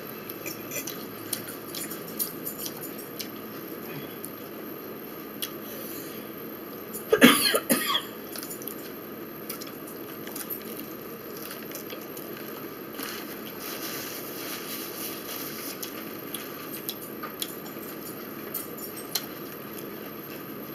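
A short fit of coughing, several quick coughs within about a second, some seven seconds in. Around it are only faint small clicks and mouth noises of eating at a table.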